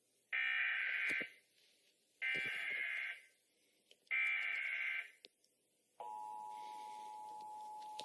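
Emergency Alert System SAME header: three short bursts of digital data tones, each about a second long and about a second apart, marking the start of a new EAS alert. About six seconds in, the steady two-tone EAS attention signal begins.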